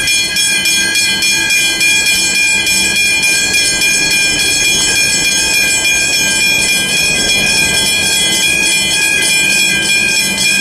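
Old railway level-crossing bells of the hybrid type ringing continuously with rapid strokes, a high metallic clang rich in overtones. It is the crossing's warning that a train is approaching.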